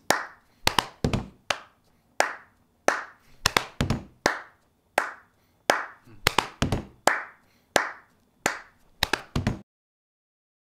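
Sharp percussive strokes, claps or taps, beaten out in an uneven stop-start rhythm of about two a second, each with a short ring after it, stopping abruptly near the end.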